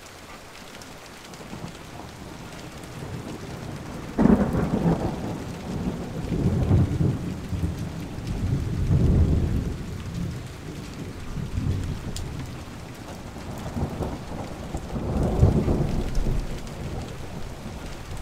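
Rain falling with rolling thunder: a sudden clap about four seconds in, then several more long rumbles.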